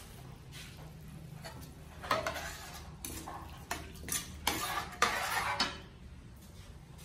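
Metal spatula scraping and clanking against a metal wok as a sauce is stirred: a run of quick scrapes starting about two seconds in, the longest and loudest near the end, then it stops.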